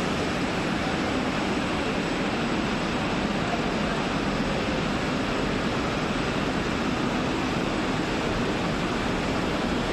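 Steady, even rushing noise of a factory hall, with no distinct machine rhythm, tone or knock standing out.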